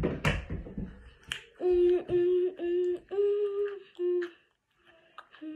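A girl humming a short tune of about five held notes at nearly one pitch, with a couple more notes near the end. A few sharp clicks, like finger snaps, come in the first second or so.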